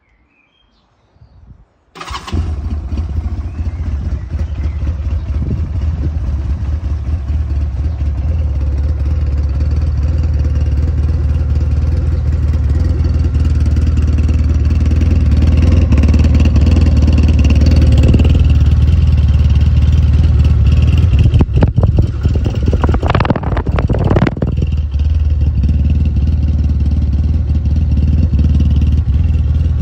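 Single-cylinder 250 cc engine of a 2003 SMC Quadzilla CBT-250 quad starting about two seconds in and then running steadily at idle with a deep, even hum, with a few knocks a little past two-thirds of the way through.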